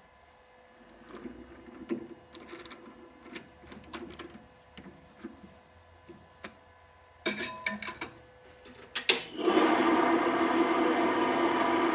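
Scattered light clicks and knocks, then, about nine seconds in, a small machine starts up and runs steadily with a constant hum.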